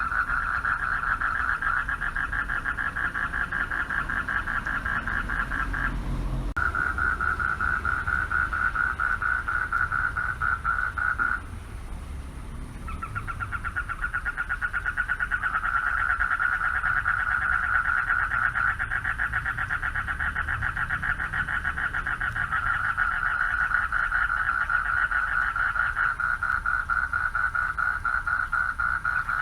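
Male frogs calling for mates: a dense chorus of rapidly pulsed calls that runs almost without pause. It dips briefly about six seconds in and drops out for a second or so near the middle. When it resumes, a second, higher-pitched caller joins in for much of the rest.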